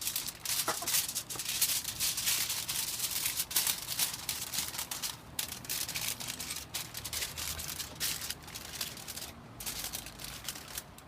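Aluminium foil crinkling and rustling as it is folded and pressed by hand around a food parcel, with a couple of brief pauses.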